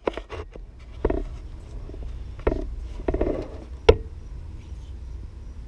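A few scattered knocks and clunks of handling, about five in the first four seconds, over a low steady rumble. No saw is running.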